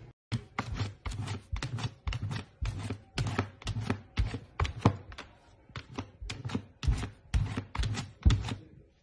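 Golden retriever puppy pawing at a plastic pet-food container full of kibble: a quick run of knocks and scrapes of paw and claws on plastic, about two or three a second.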